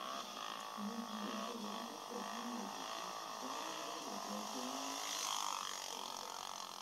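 Single-cylinder dirt bike engine revving, its pitch held then swinging up and down as the throttle is worked through a wheelie, heard thin through a small camera speaker.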